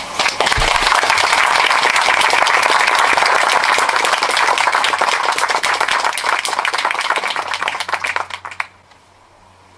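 Audience applauding: a dense stretch of clapping that thins out and stops about a second before the end.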